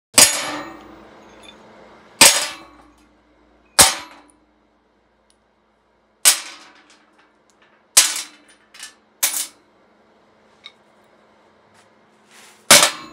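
Metal rods, then nuts and bolts, set down one after another on a steel tabletop: about seven sharp metallic clangs a second or two apart, each with a short ring, and a few lighter clinks in the middle. A last loud clang comes near the end, as the pipe wrench is brought down onto the table.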